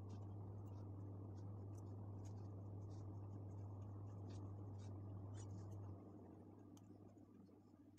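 Faint scratching and small ticks of a thin metal pin being pushed and turned in a hole in a wireless earbud's plastic housing, to clear the hole. Under it runs a steady low hum that drops in level about six seconds in.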